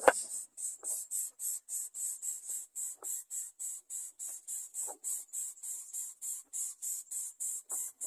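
Rhythmic high-pitched chirping, about four to five chirps a second, going on steadily, with a sharp knock right at the start and a few brief lower calls about one, three and five seconds in and near the end.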